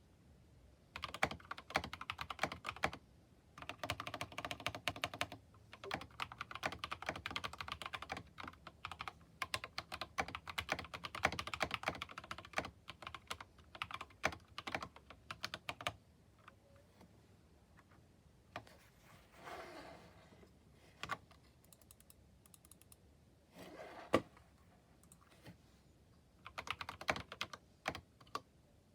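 Typing on a newly built mechanical keyboard: fast, dense runs of keystrokes for roughly the first fifteen seconds, then scattered single presses and a few short runs.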